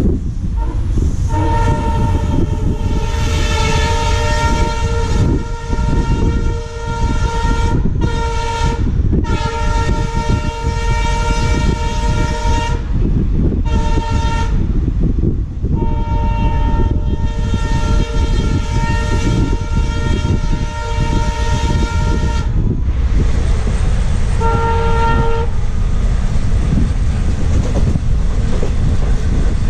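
Train horn sounding in long blasts with short gaps between them for about twenty seconds, then one short blast, over the steady rumble of a running train.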